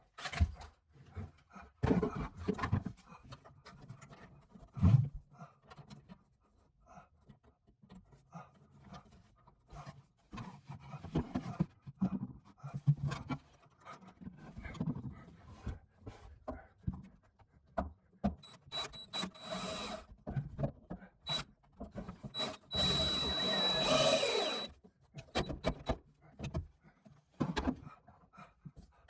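Wooden vise parts being handled in a workshop, with scattered knocks and rubbing of wood, and a power drill running twice, each for about two seconds, about two-thirds of the way through.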